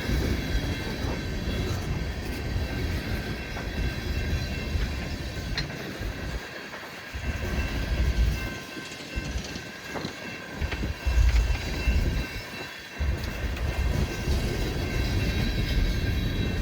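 Empty coal hopper cars of a long freight train rolling past, their wheels rumbling and clacking on the rails, with thin, steady high-pitched ringing from the wheels throughout. The low rumble swells louder about eight and eleven seconds in.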